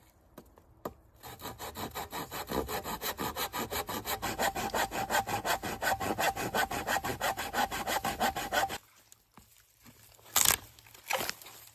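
Hand saw cutting through wood in quick, even strokes for about seven seconds, then stopping. A single sharp knock follows a little later.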